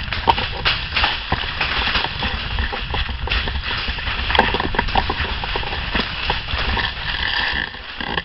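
Irregular knocks and clatter, like footsteps and gear moving, over a steady low rumble.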